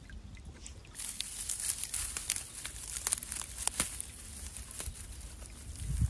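Dry dead fern fronds and stalks rustling and crackling as someone moves through them, many small sharp crackles over a steady low rumble, starting about a second in.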